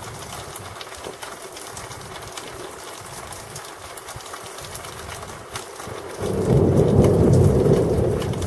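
Steady rain with small ticking drops. About six seconds in, a loud rumble of thunder breaks in and keeps rolling.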